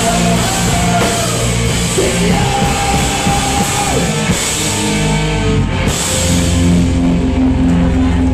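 Punk rock band playing live: loud distorted electric guitars, bass and drums with singing. About six seconds in the cymbals and drums drop out, and a held guitar and bass chord rings on, as the song ends.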